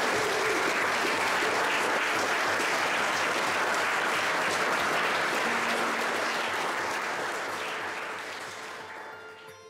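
Church congregation applauding, a dense steady clapping that fades out over the last two seconds.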